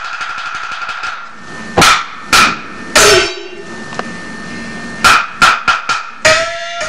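Peking opera percussion ensemble accompanying a stage sword fight. Loud cymbal and gong crashes: three spaced strikes, then a quick run of five near the end, each leaving a ringing metallic tone, one gong's pitch sagging after it is struck.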